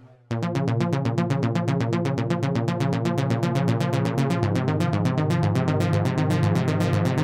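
Modal Electronics Carbon 8x digital synthesizer playing a sequenced patch: after a short gap at the start, rapid evenly repeating pulsing notes over a shifting bass line, with the bass note changing a little past halfway.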